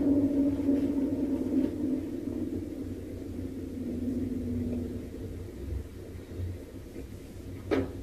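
Played-back recording of the reported 'strange sounds in the sky': a low, droning groan made of several steady tones, loudest at the start and slowly fading, over a low rumble. A short click near the end.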